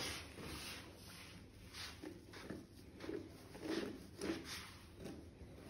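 Pin brush drawn through a dog's curly, woolly coat in soft, repeated strokes, about two a second.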